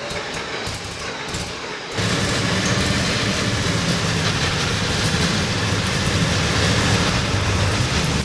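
Porsche 917's air-cooled flat-twelve racing engine running, its cooling fan spinning, a steady engine note under a rushing haze. It gets abruptly louder about two seconds in.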